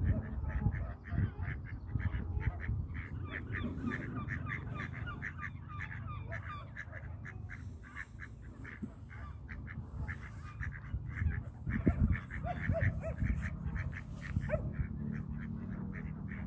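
Waterfowl calling: many short honking and quacking calls in quick, overlapping succession, over a steady low rumble.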